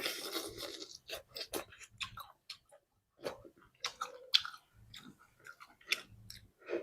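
A person chewing and biting food close to the microphone: irregular short clicks and mouth sounds, a few a second, with brief pauses.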